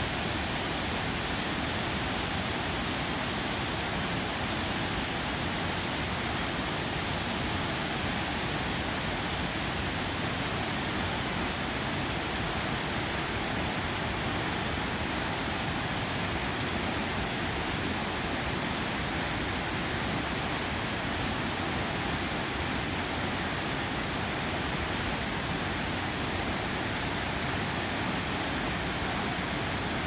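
Waterfall cascading down a rock face into a plunge pool: a steady, unbroken rush of falling water.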